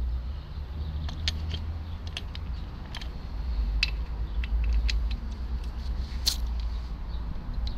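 Irregular light metal clinks and taps of a half-inch ratchet and 17 mm socket being fitted onto a motorcycle engine's oil drain plug, over a steady low rumble.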